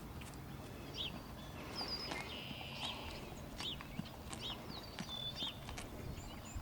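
Horses moving about with scattered soft knocks of hooves, while a bird repeats a short chirp roughly once a second.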